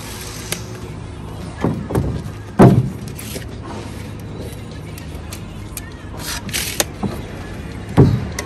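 Thumps and knocks of a concrete block being handled on the scaffold, the loudest about two and a half seconds in and another near the end, with a few clicks and a brief rasp from a tape measure, over a steady low background hum.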